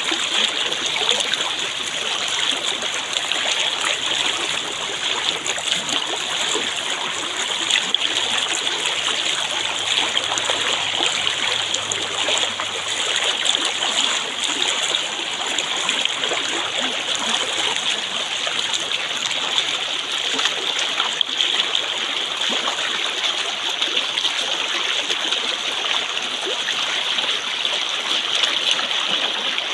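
Water flowing in a stream, a steady rush and babble that keeps an even level throughout.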